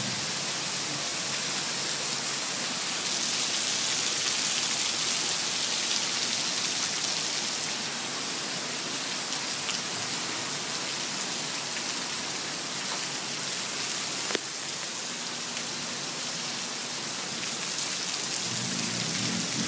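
Heavy rain pouring down in a steady hiss, with a single sharp knock about fourteen seconds in.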